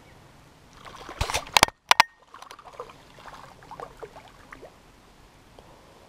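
Handling noise from a light spinning rod and reel: a cluster of sharp clicks and knocks about a second in, then a string of soft ticks and rustles.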